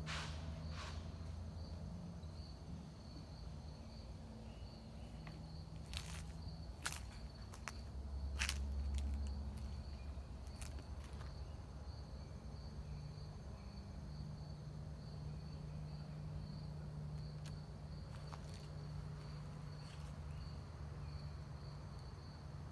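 Insects chirping steadily outdoors in an even, high-pitched pulse, with a low steady hum underneath. A few sharp clicks come about a third of the way in.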